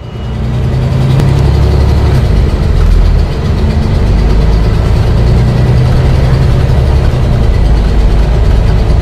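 Volvo B9TL double-decker bus's six-cylinder diesel engine running steadily at low revs, fading up in the first second with a slight change in pitch now and then.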